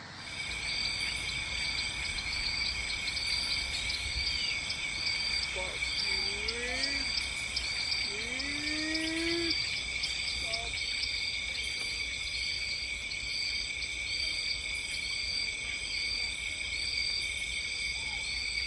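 Steady chorus of insects: a constant high buzz with an evenly repeating chirp, about one and a half a second. Between about 6 and 10 seconds a few short, low calls slide up and down in pitch.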